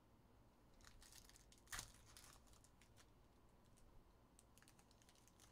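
Faint crinkling of a foil trading-card pack wrapper as it is handled and opened by hand, with one sharper crinkle a little under two seconds in.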